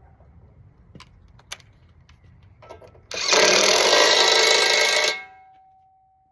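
A power tool runs in one loud burst of about two seconds, starting about three seconds in, after a few light clicks and knocks.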